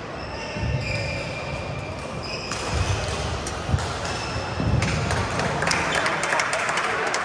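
Badminton rally on an indoor court: shoe soles squeaking on the court floor, the thud of footfalls, and sharp racket-on-shuttlecock hits, one especially sharp just past the middle, with a busier stretch of quick clicks near the end.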